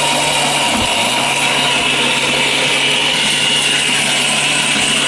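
Orpat 1600-watt commercial blender with a steel coupling running, a loud steady whir as it grinds turmeric and water into a paste in its large steel jar.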